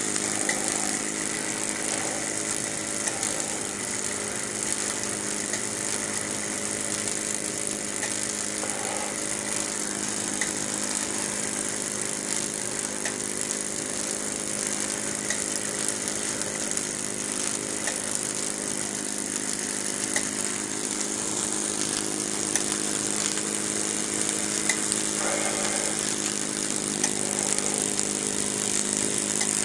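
Miniature Lutz Hielscher live-steam engine running steadily, driving a small dynamo and trip hammers through belts and reduction gearing: a steady whirring hum over a hiss, with scattered light ticks.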